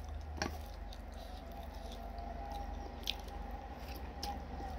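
Close-up eating sounds of stir-fried instant noodles with cabbage: wet chewing and slurping of noodles, with a few sharp clicks, over a steady low hum.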